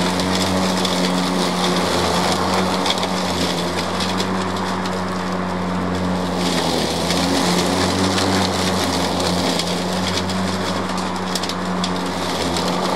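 Stiga Twinclip 950 battery lawnmower running with a steady electric-motor hum as its blades chop through a clump of tall, thick grass, with a dense crackling of clippings hitting the deck. The motor holds its speed and does not bog down or cut out under the heavy load.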